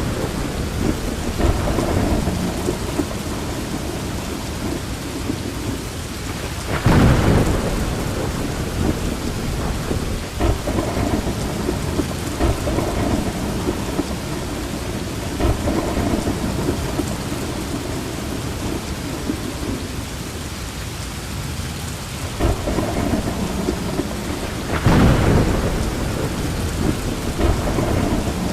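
Steady rain with thunder rumbling through it, swelling loudest about seven seconds in and again near the end.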